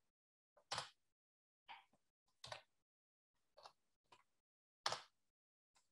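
Computer keyboard keystrokes while code is typed: about seven separate, irregularly spaced clicks, with silence between them.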